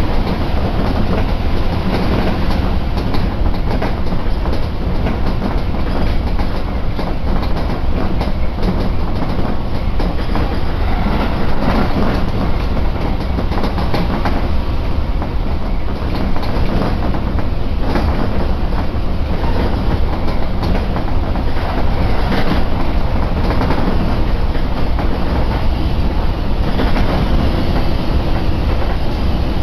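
Tobu Isesaki Line electric train heard from inside the carriage while running: a steady rumble of wheels on rail, with clicks as the wheels pass over rail joints.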